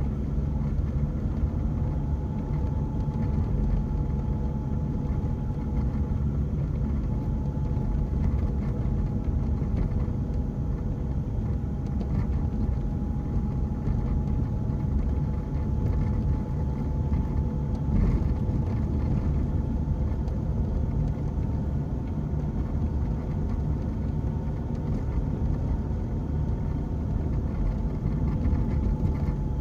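Cabin sound of a diesel BMW 1 Series driving: steady low road and engine rumble with a thin, steady high whine on top. The owner says the whine comes from the gearbox, vanishes when the clutch is pressed or the car is out of gear, and gets much louder from third gear up.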